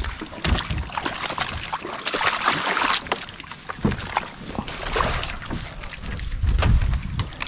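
Water splashing and sloshing, with scattered knocks and an uneven low rumble.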